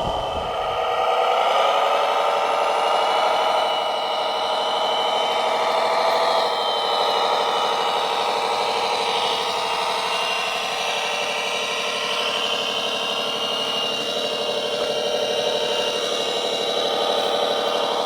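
Steady mechanical whine of a radio-controlled heavy model vehicle's electric drive, its pitch drifting slightly up and down. The low rumble drops away about a second in.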